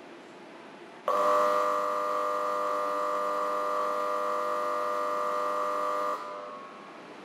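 Factory electric buzzer sounding one steady tone for about five seconds, switching on about a second in and cutting off abruptly.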